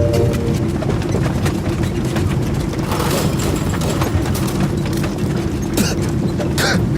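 Airliner turbulence sound effect: a loud, steady low rumble with rapid rattling and clattering over it.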